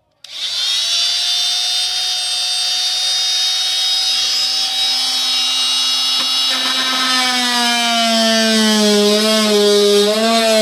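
Oscillating multi-tool starting up a moment in and cutting out the traced speaker opening in a Jeep Wrangler headbar: a steady high-pitched buzz. After about six seconds a lower, wavering tone joins as the blade works through the material, its pitch dipping near the end.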